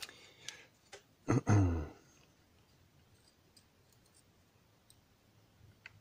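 Light, scattered clicks of a steel pick and tiny slider parts against a Yale Superior lock cylinder core as the sliders and springs are worked out of it, with a short voice sound about a second and a half in.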